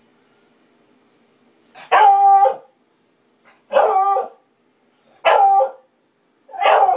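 Beagle baying at a mounted deer head: after a quiet start, four drawn-out, pitched barks about a second and a half apart.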